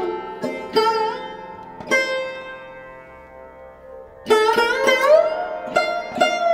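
Background instrumental music: a plucked string instrument playing a melody with notes that bend in pitch. The playing thins out and rings away after about two seconds, then starts again a little after four seconds.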